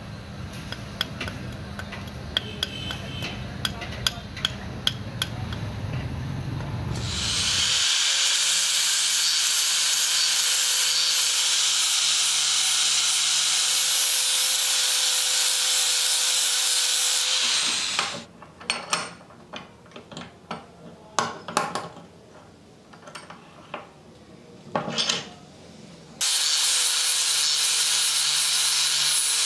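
Quick metallic taps of a chipping hammer knocking slag off a fresh weld. Then an angle grinder grinds down the weld bead on a steel hammer head, running steadily for about ten seconds. It stops for several seconds, leaving a few scattered knocks, and starts grinding again near the end.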